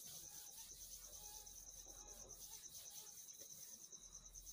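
Near silence: a hand very faintly rubbing marker off a whiteboard, over a steady, evenly pulsing high chirp like a cricket's.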